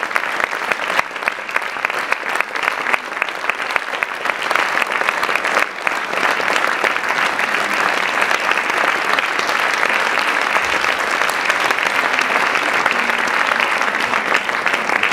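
Theatre audience applauding: many hands clapping in a dense, steady stream that grows a little fuller in the second half.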